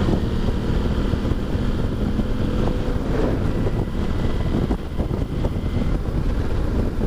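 Wind noise on the microphone of a motorcycle cruising at highway speed, with its engine running steadily underneath.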